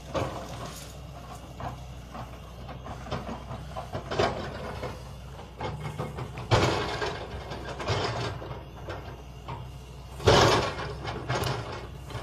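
Excavator's diesel engine running at a demolition, a steady low hum, with louder rough crashing noises about six and a half and ten seconds in.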